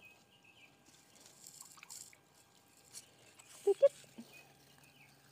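Faint rustling of a wet mesh net bag and small drips and trickles of water as a hand rummages in it for the catch, with a short spoken word just before the end.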